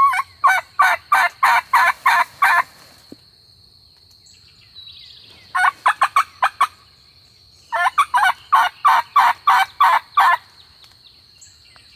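Hen turkey yelps on a hunter's turkey call: a run of about nine loud yelps, a quicker burst of notes about halfway through, then another run of about eight yelps. The calling is to 'check' a distant gobbler and make him answer.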